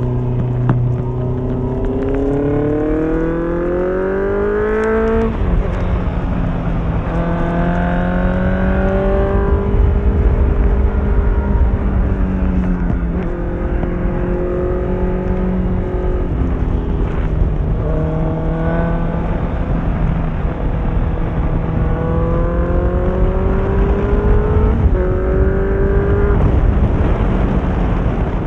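Honda CBR650F inline-four engine through an Akrapovic exhaust, under acceleration: the revs climb over a few seconds and then drop at each gear change, several times over, with a steady low rush of wind underneath.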